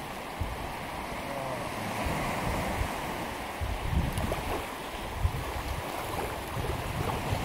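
Small waves washing up on a sandy shore, with wind gusting on the microphone in low rumbles.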